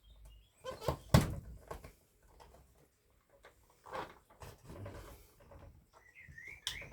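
Knocks and clicks of tools and parts against a bakelite case as sealed bolts are worked out, with one sharp click about a second in and a few short squeaks near the end.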